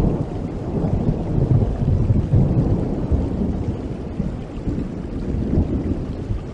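Low, rumbling noise with no clear pitch, swelling in the first couple of seconds and then slowly fading.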